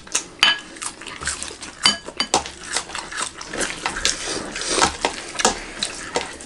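Close-miked eating sounds: irregular wet smacks and clicks of chewing and of fingers working rice in a metal karahi, with occasional light clinks of pans and dishes.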